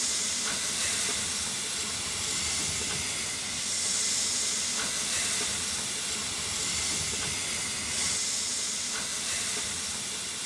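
Breda-built 1927 steam locomotive 202.002 standing in steam, hissing steadily, the hiss swelling about every four seconds.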